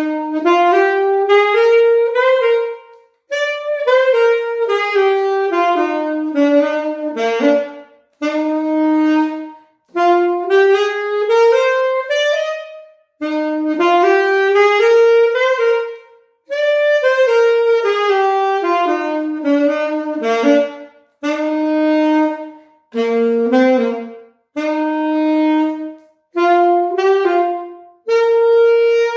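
Alto saxophone playing a solo swing exercise: phrases of quick running notes, broken by short breaths every two to four seconds.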